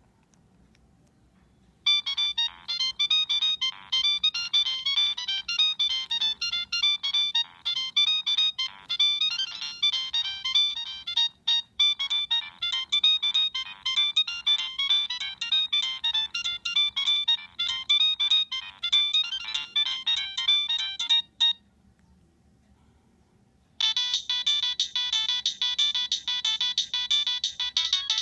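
Nokia 3586 mobile phone ringtone: a fast electronic melody of rapid beeping notes plays for about twenty seconds with a brief break near the middle, then stops. After about two seconds another ringtone begins.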